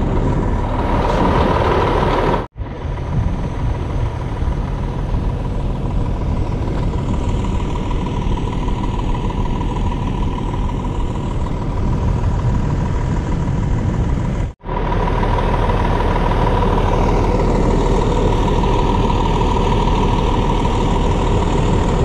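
Vehicle engine running steadily at idle, with a constant high whine over a rough low rumble. The sound drops out abruptly twice, about two and a half and fourteen and a half seconds in.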